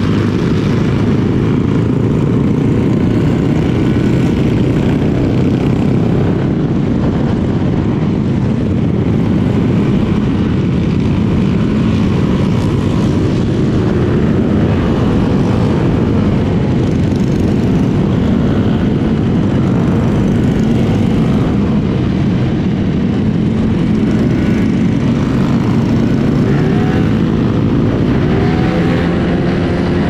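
Steady, loud wind and road rumble of a Honda LEAD125 scooter being ridden, the noise heaviest at the low end and unbroken throughout.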